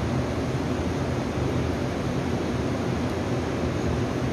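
Taiwan Railway electric multiple unit standing at the platform, its onboard equipment giving a steady low hum under an even rushing noise.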